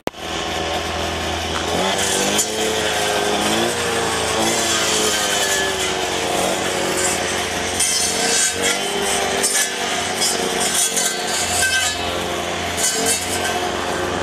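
Petrol strimmer engine running, revving up and down repeatedly as it cuts through woodland undergrowth.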